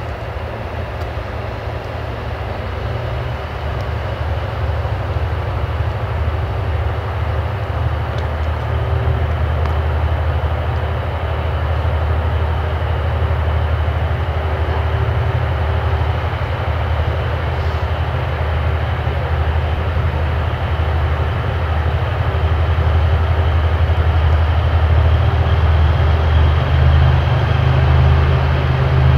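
Diesel-hydraulic locomotive's engine rumbling steadily as it approaches, slowly growing louder.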